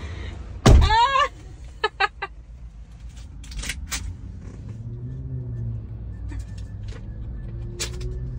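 A car door slams shut about a second in, followed at once by a short laugh. A few faint clicks follow, then a low steady mechanical hum from about halfway through.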